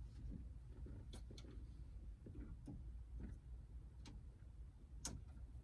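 Faint scattered clicks and light taps of hand work on car door parts, with the sharpest click about five seconds in, over a low steady hum.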